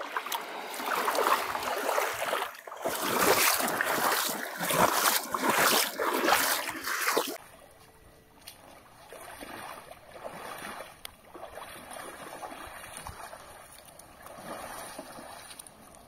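Water splashing and sloshing around a small canoe moving through shallow river water, loud and ragged, cutting off abruptly about seven seconds in. After that there is a much quieter, steady water-and-air background with a few faint small splashes.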